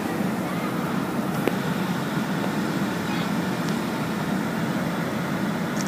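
Steady drone of a passenger plane's cabin noise, even and unbroken, with one short click about a second and a half in.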